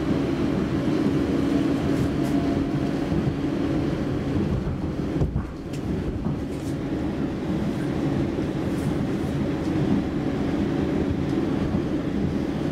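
Stockholm Metro C20 subway car running, heard from inside the passenger cabin: a steady rumble of wheels on rail with a humming drive tone and a few faint ticks. The noise dips briefly about five seconds in.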